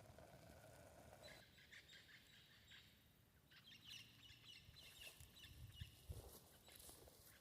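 Faint birds chirping in quiet outdoor ambience. A faint steady hum stops about a second and a half in, and a few soft knocks come near the end.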